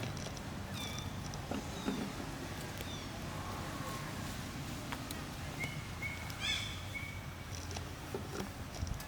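Monkey giving a few short high-pitched squeaks, with scattered light clicks and knocks.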